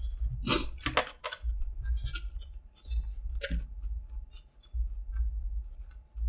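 A person chewing a mouthful of crispy chicken sandwich: short crunching and wet mouth clicks, densest about a second in, then scattered. A low steady hum runs underneath.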